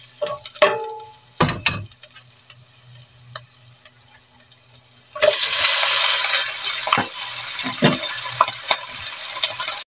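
A spatula clicking and scraping in a nonstick pot of frying onions and garlic, then, about five seconds in, a sudden loud sizzle as raw chicken wings drop into the hot oil. The sizzle carries on, with a few knocks of the wings against the pot.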